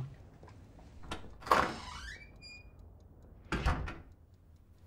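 Two knocks about two seconds apart, the first followed by a short rising squeak that holds briefly on one pitch.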